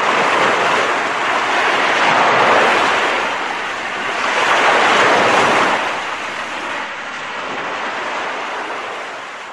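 Small waves breaking and washing up a pebble beach, the surf swelling and ebbing every two to three seconds, fading out at the end.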